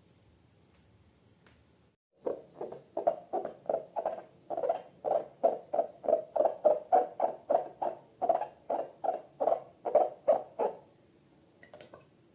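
Slime being squished and squeezed by hand in a rhythmic run of wet squelches, about three a second, starting about two seconds in and stopping shortly before the end.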